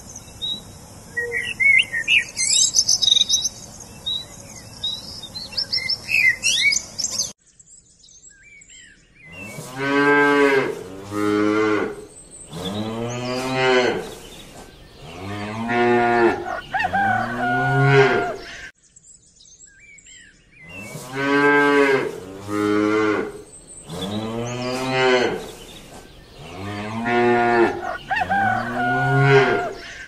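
Small birds chirping over a steady hiss for about seven seconds, then a sudden cut to cattle mooing: long, low calls that rise and fall in pitch. About five moos come in a row, and the same run of moos plays again.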